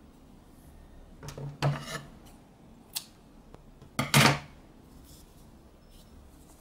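Scissors cutting the yarn to fasten off a finished crochet piece: two snips about two and a half seconds apart, the second the louder, with a small click between them.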